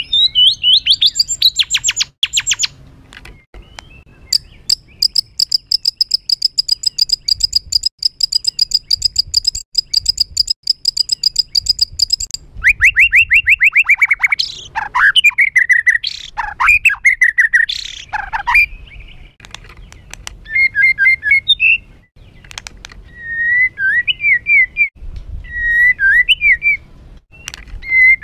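White-rumped shama singing a rough, agitated song: rising whistled sweeps, then a long fast trill of high repeated notes, followed by quick falling sweeps and short varied whistled phrases.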